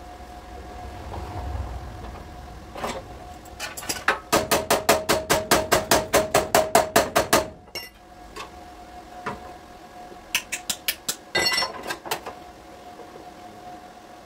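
Hammer tapping on car body sheet metal: a fast, even run of about twenty ringing taps, roughly six a second, in the middle, then a few more scattered taps later.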